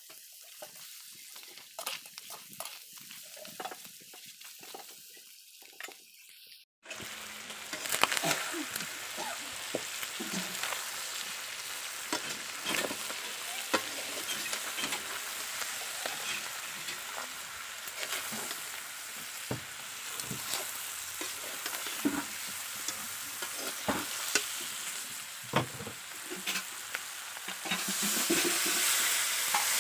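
Meat and vegetables sizzling in a wok over a wood fire while a metal spatula stirs, scraping and clicking against the pan. About seven seconds in the sizzling turns suddenly louder, and near the end water is poured into the hot pan and the hiss grows stronger.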